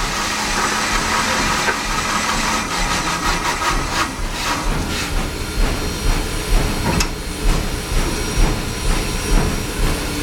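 Cab of Canadian Pacific 2816, a 4-6-4 Hudson steam locomotive: steady steam hiss, with a regular beat of about two strokes a second setting in about four seconds in as the locomotive moves.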